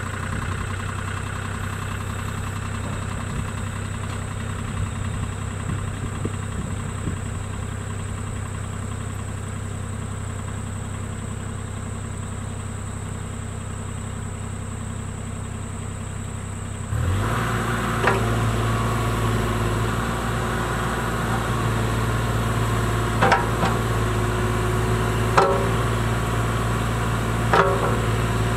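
Kubota KX040-4 mini excavator's diesel engine idling steadily. About 17 s in it rises to a higher, louder steady speed as the hydraulics go to work, with several sharp knocks from the moving arm and bucket.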